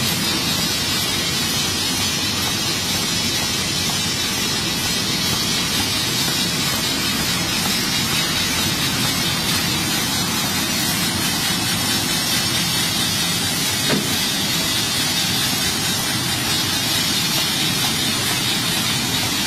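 Automatic box-making machine running steadily: a continuous, even mechanical rush and hiss, with a single sharp click about fourteen seconds in.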